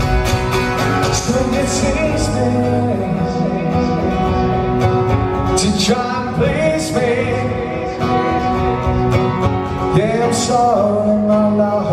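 Live acoustic song: strummed acoustic guitar over a cajon beat, with a male voice singing long held lines about halfway through and again near the end.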